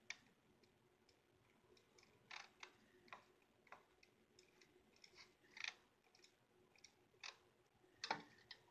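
Faint, irregular computer clicks, scattered taps roughly one or two a second, with no set rhythm, as from a mouse and keys on a laptop.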